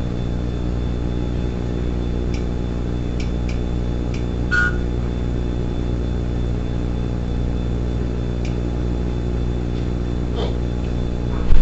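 Steady low hum made of many even tones, with a few faint clicks and a short beep about four and a half seconds in, then a sharp knock near the end.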